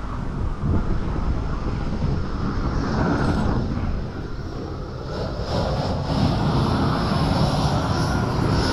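Handheld propane torch wand burning with a steady rushing flame as it is played over concrete pavers; the flame gets a little louder about six seconds in.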